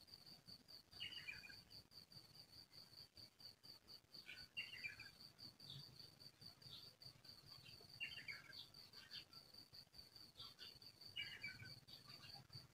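Faint outdoor ambience: an insect trills steadily in rapid high pulses, while a bird gives a short falling chirp call about every three and a half seconds, four times.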